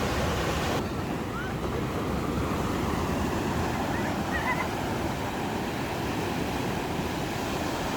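Ocean surf washing onto a beach, a steady rushing noise whose higher hiss drops away suddenly a little under a second in. A few faint short high-pitched sounds come through the surf around the middle.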